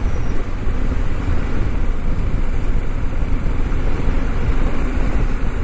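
Motorcycle riding at low speed: steady low wind rumble on the microphone, with the bike's engine and tyres running underneath.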